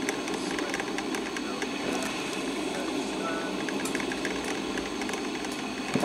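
Black & Decker thermal carafe drip coffee maker brewing: a steady hiss and gurgle as its heater pushes hot water through, with irregular small crackles and pops.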